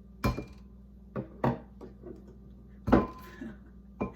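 A raw egg being tapped against a hard edge by a small child: about five sharp knocks at uneven intervals, with the shell not yet cracking.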